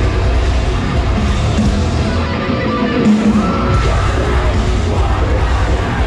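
Live metalcore band playing loud, with heavy distorted guitars, drums and yelled vocals. The low end drops out briefly about halfway through, then comes back in.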